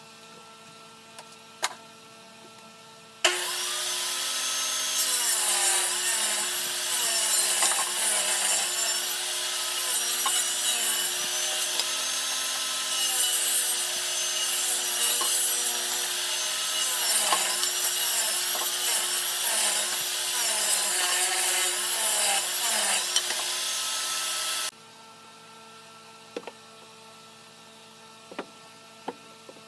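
Electric power tool working wood, running for about twenty seconds with its pitch dipping and recovering as it bears into the work. It starts and stops abruptly.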